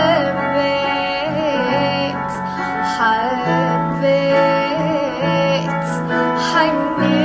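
Music: a solo voice sings a slow Iraqi song with wavering, ornamented pitch over a steady instrumental accompaniment.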